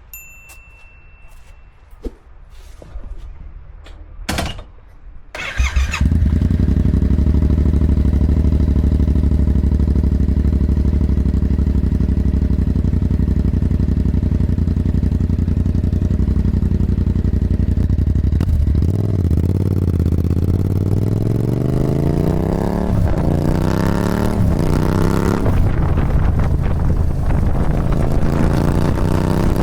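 Yamaha MT-07's parallel-twin engine, breathing through a Musarri exhaust with the baffle out and only a mesh end cap, starting about five seconds in after a few clicks and idling steadily. From about two-thirds of the way through it is blipped repeatedly, the revs rising and falling several times.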